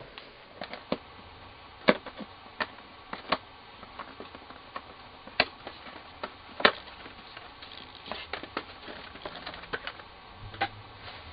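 A cardboard box and its packaging being opened and unpacked by hand: irregular sharp clicks, taps and knocks with softer rustling and scraping between them.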